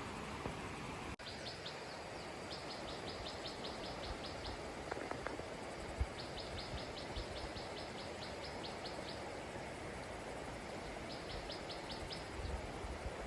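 A bird calling in four runs of quick, high repeated notes, about seven a second, over a steady background hiss.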